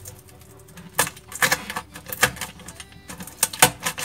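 Snap-off box cutter cutting along the taped edge of a cardboard box: scratching with irregular sharp clicks.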